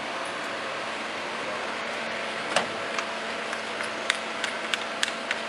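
Steady workshop hum, then a run of sharp clicks and light knocks, about three a second in the second half, as a hand drill is picked up and handled.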